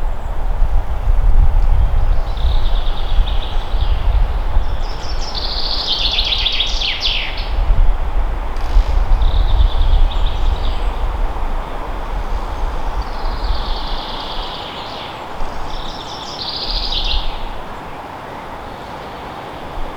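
Forest birds singing, with a song phrase every few seconds. Beneath them runs a low rumble that dies away near the end.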